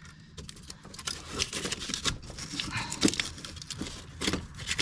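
Hands working a heater core access panel loose under a car's dashboard: irregular clicks, light knocks, scraping and rustling, with a couple of sharper knocks about three and four seconds in.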